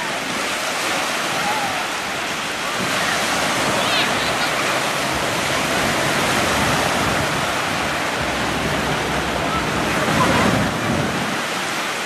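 Steady wash of sea surf and water sloshing around people in the shallows, with faint voices calling out once or twice.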